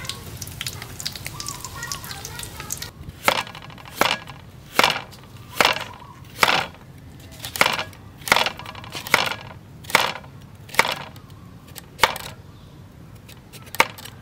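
A kitchen knife slicing a carrot into rounds on a wooden chopping board: about a dozen crisp chops, roughly one every three-quarters of a second, starting about three seconds in. Before them there is only a faint crackling.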